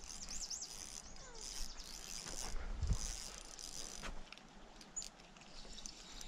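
Fishing reel being cranked in stop-start spells, a high-pitched whir with small clicks, as a hooked trout is played in.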